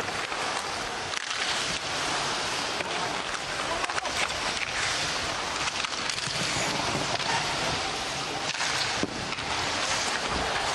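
Ice hockey game sound at rink level: a steady crowd hum under scattered sharp clicks and scrapes from play on the ice.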